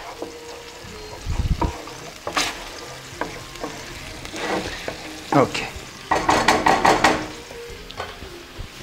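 Spoon stirring and scraping a yogurt gravy in a stainless steel roasting pan as it sizzles and bubbles on the stovetop while it reduces, with a flurry of quick scrapes near the end.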